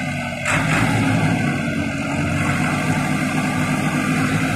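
Tractor diesel engine running steadily, picking up and getting louder about half a second in.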